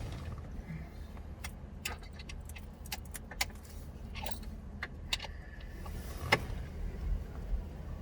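Scattered small metallic clicks and taps of hand tools on the bolts of a Tesla Model 3 screen bracket as it is tightened down, over a low steady hum.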